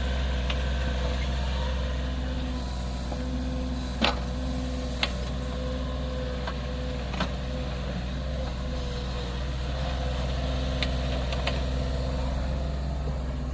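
Three-cylinder Kubota diesel engine of a Kubota KH-026 mini excavator running steadily at a low speed, with a deep, even hum. A few short sharp knocks sound over it, about four, five and seven seconds in.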